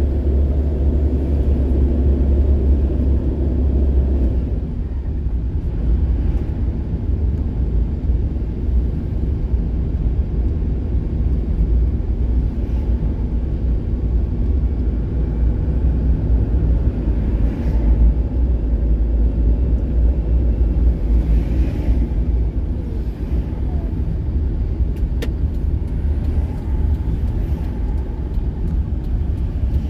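Steady low engine and road rumble of a vehicle driving through town, heard from inside its cab; it eases a little after about four seconds.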